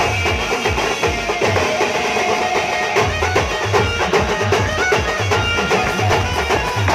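Live Adivasi band party music: several stick-beaten snare-type drums and a bass drum playing a driving dance rhythm, with a pitched melody line over them.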